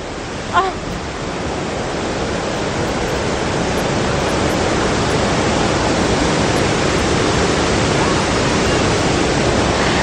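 Roswell Mill waterfall on Vickery Creek, a steady rush of falling water. It grows louder over the first few seconds, then holds steady.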